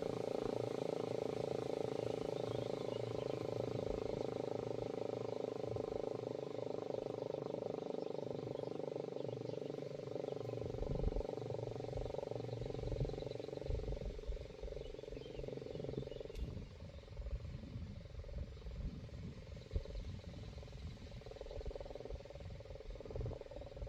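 DS977 electric motor siren sounding a steady, loud tone with overtones during its weekly test alarm. The tone grows weaker about two-thirds of the way through.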